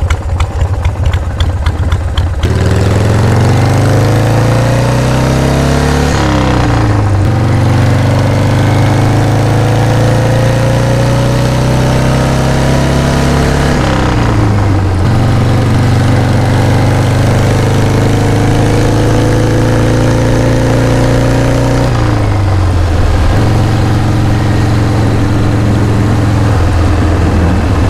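Cruiser motorcycle engine idling for about two seconds, then pulling away and accelerating up through the gears. The engine note climbs, dips at each of three upshifts, and climbs again, with wind rush over the microphone.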